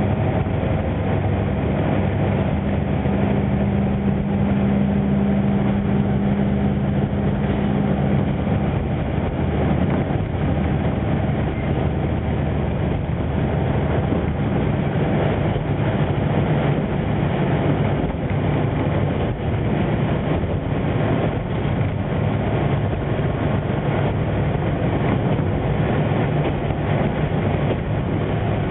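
KiHa 20 diesel railcar heard from inside while running: a steady engine drone over wheel-on-rail rumble, with a stronger engine tone that fades out about eight seconds in.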